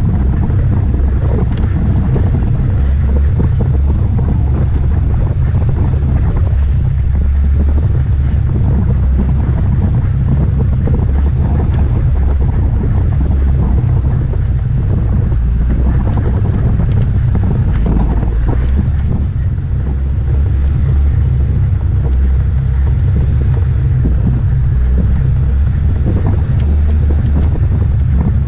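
Off-road vehicle engine running steadily as it drives over a rough dirt trail, with wind buffeting the microphone.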